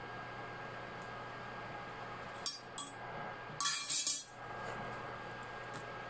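A pot lid being set on an enamelled pot: two short clinks against the rim about two and a half seconds in, then a louder brief rattle as the lid settles, over a faint steady hum.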